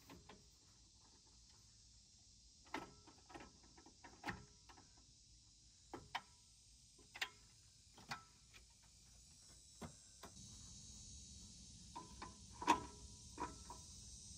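TorkLift GlowStep Revolution folding aluminium camper steps clanking and clicking as they are pulled out, unfolded, stepped on and set in place: about a dozen irregular metallic clanks, some with a brief ring.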